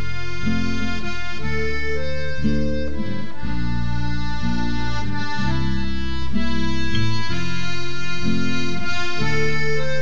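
Instrumental background music: a melody of held notes over sustained bass chords, getting a little louder about six seconds in.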